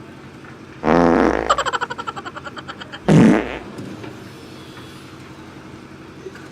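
Prank fart noises: a loud, long fart about a second in that breaks into rapid fluttering and trails off over about two seconds, then a second short fart just after three seconds.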